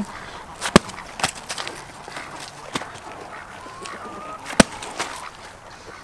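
A whole cabbage slammed down onto hard dirt, two sharp thuds about four seconds apart as it is split open, with a few lighter knocks between them. A faint poultry call sounds between the two thuds.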